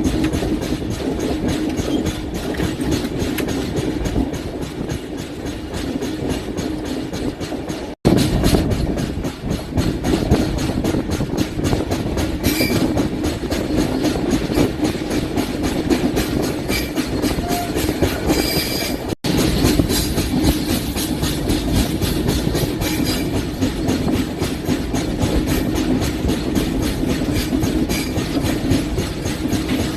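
Indian Railways LHB passenger coach running at moderate speed through a curve, with a steady, rhythmic knocking from a flat spot on a wheel over the running noise of the bogies on the rails. There are a few faint brief squeals from the wheels.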